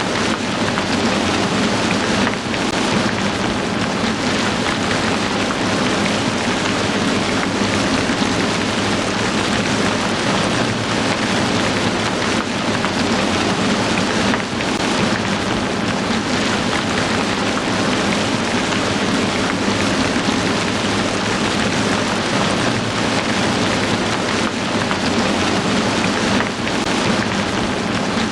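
Heavy rain falling steadily on a surface, a dense even hiss with no let-up.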